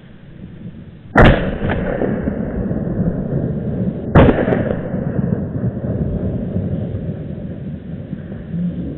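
Two loud gunshots from a hunting gun, about three seconds apart, each followed by a trailing echo.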